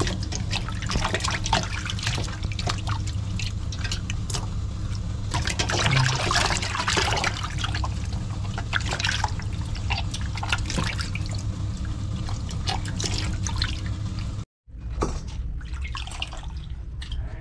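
Water sloshing and splashing in a stainless steel bowl as hands rub and rinse whole squid, with drips and trickles, over a steady low hum. The sound drops out briefly near the end, then water drips and pours from a squid lifted out of the bowl.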